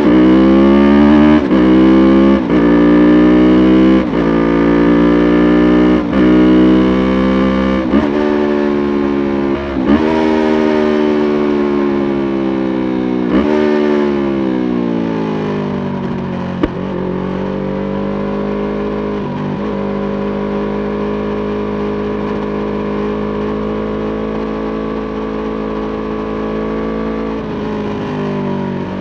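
Yamaha YZF-R3's parallel-twin engine held at high revs, its note dipping briefly every one to two seconds. About ten seconds in, the revs fall away over several seconds, and it then settles into a steady, lower running note.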